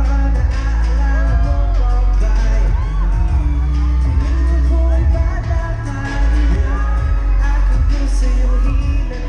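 Live pop music: a male vocal group singing over an amplified backing track with heavy, booming bass, heard from the audience through concert loudspeakers.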